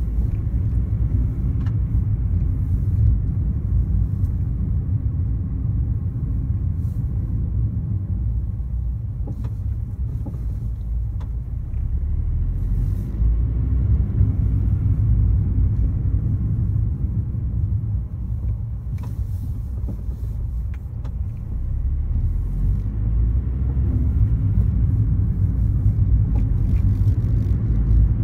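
Car driving, heard from inside the cabin: a steady low rumble of engine and tyres on the road that eases slightly about two-thirds of the way through, with a few faint clicks.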